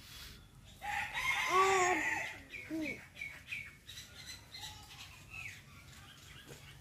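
A domestic chicken gives one loud drawn-out call about a second in, lasting about a second and a half with a rustle under it, followed by a few short falling notes. Small birds chirp faintly throughout.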